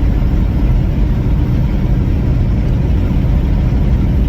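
Steady low rumble of road and wind noise from a vehicle driving at highway speed.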